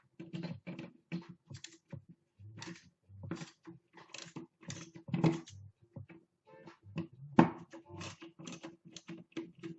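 Irregular clicking and clattering of small metal tools being handled: screwdriver bits rattled and swapped in search of a skinnier one, with a couple of louder knocks about five and seven seconds in.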